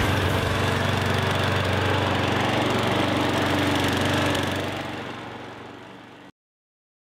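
Lawn mower engine running steadily. It fades out over a couple of seconds and then cuts off abruptly to silence near the end.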